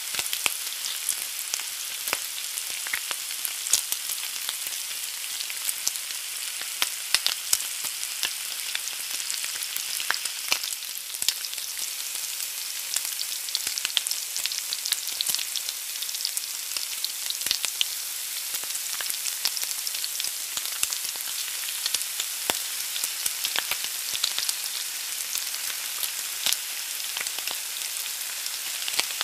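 An egg frying in a pan: a steady, high sizzle with many sharp little crackles and pops.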